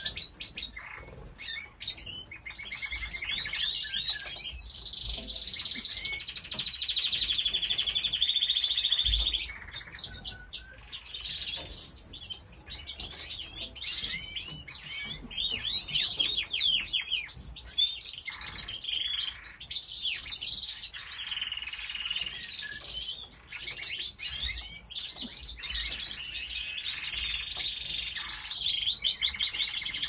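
Canaries singing: long, high-pitched phrases of fast rolling trills and chirps lasting several seconds each, with short lulls in between.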